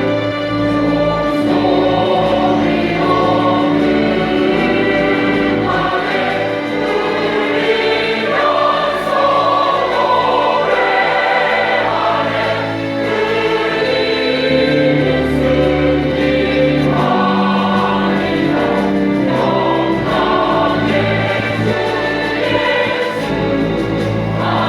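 Combined church choir singing a Christmas cantata, several voice parts at once over long-held low accompaniment notes.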